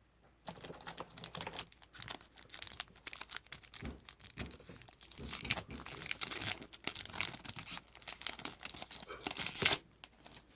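Trading-card pack wrapper being torn open and crinkled by hand, an irregular rustling that is loudest just before it stops, near the end.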